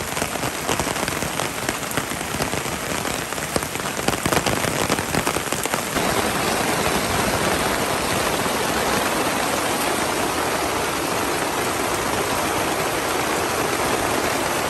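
Heavy rain falling steadily, a dense hiss of drops. In the first several seconds it is dotted with sharper drop hits, then settles into an even rush.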